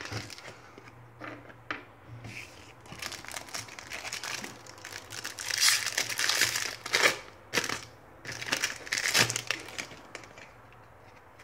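Crinkling of a silver foil trading-card sachet as it is opened and crumpled by hand, among the shuffling of cards. The loudest bursts of crinkling come around the middle and again about nine seconds in.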